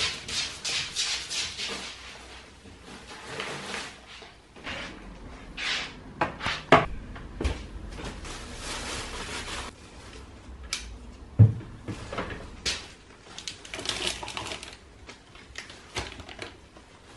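Household handling sounds: a quick run of noisy strokes, about three a second, then scattered clicks and knocks, with one sharp thud about eleven and a half seconds in.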